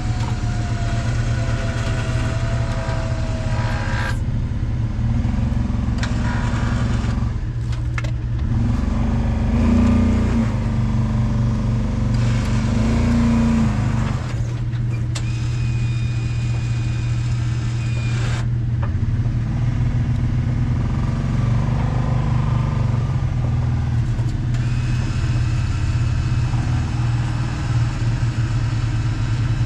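Vehicle engine running steadily while an electric winch hauls a side-by-side up a rock ledge. A second motor hum comes and goes in several stretches as the winch pulls.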